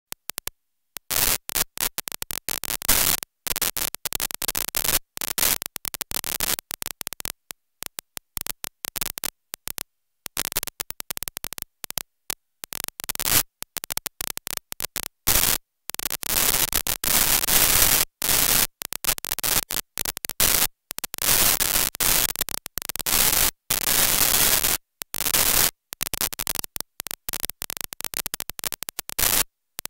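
Harsh static hiss that keeps cutting out to dead silence and back in, many times a second in places: a glitching, broken-up recording audio track.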